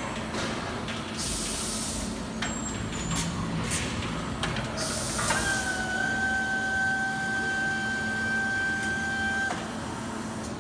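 Robotic welding cell in motion. Short hissing bursts and clicks come first, then from about halfway a steady electric motor whine holds one pitch for about four seconds and cuts off sharply.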